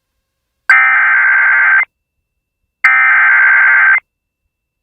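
Emergency Alert System SAME header: two buzzy digital data bursts, each just over a second long with a click at the start, about a second apart. The bursts encode the alert's header, here a severe thunderstorm warning (event code SVR).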